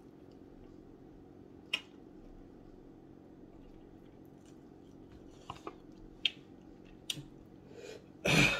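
Mouth sounds of a person eating chicken wings: a few short, sharp smacks and clicks from chewing and licking sauce off the fingers, over a low steady hum. Near the end comes one short, loud breath.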